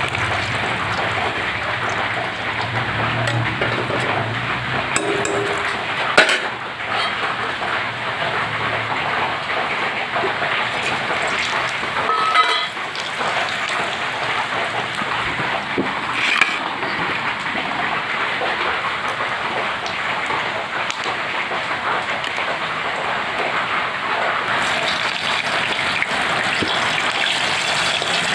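Heavy rain falling steadily, mixed with hot oil sizzling in a steel kadhai. A few metallic clinks of a ladle against the pan sound, one near the middle ringing briefly.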